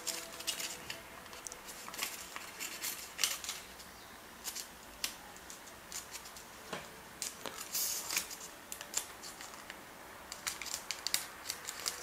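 Thin origami paper crinkling and crackling as fingers fold and press the creases of a paper bird's beak, with irregular crisp clicks and rustles.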